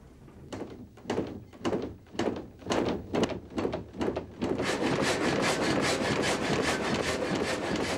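Old water-driven sawmill starting up as its water supply is opened: separate wooden knocks that come faster and faster, then from about four and a half seconds in a steady, dense clatter as the machinery runs up to working speed.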